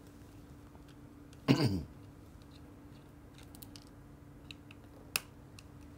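A short vocal sound from a man about one and a half seconds in, falling in pitch. After it, faint small clicks of a precision screwdriver turning tiny screws in a plastic lens housing, with one sharper click near the end, over a faint steady hum.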